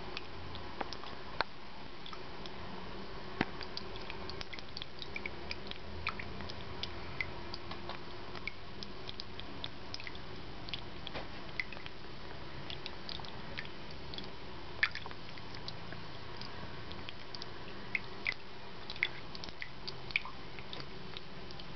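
Small tabletop ceramic fountain running: a steady trickle of water with scattered drips and small clicks.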